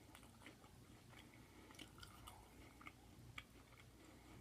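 Faint close-up chewing of food, with small scattered mouth and teeth clicks.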